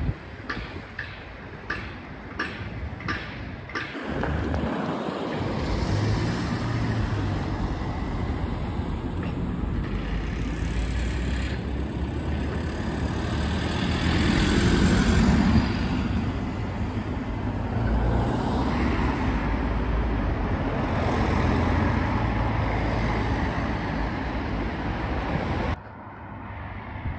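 Road traffic: a heavy vehicle's engine running as it passes, with steady road and tyre noise that swells to its loudest about halfway through. A run of regular clicks comes first, and the sound cuts off suddenly near the end.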